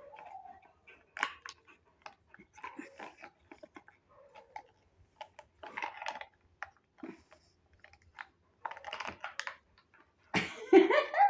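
German shepherd tugging and mouthing a tug toy: scattered crunches, clicks and scuffles. A loud voice-like cry near the end.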